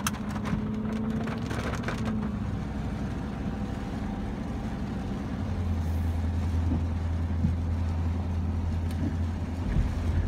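Truck's engine and road noise heard from inside the cab while driving, a steady low drone that grows louder about halfway through, with a few clicks near the start.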